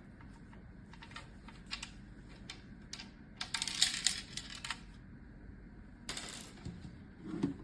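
Small clicks and taps of hard plastic parts being handled while a plastic appliance housing is taken apart, with a short scraping rustle about three and a half seconds in and another about six seconds in.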